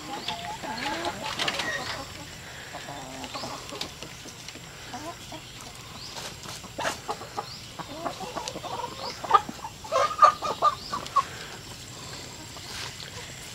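Chickens clucking in short calls, with a burst of louder, quicker clucks about ten seconds in.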